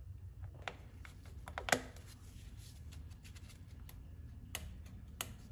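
Faint handling noise and a few sharp plastic clicks as AA batteries are pushed into a drill press laser's battery compartment and its cover is pressed shut; the loudest click comes a little under two seconds in.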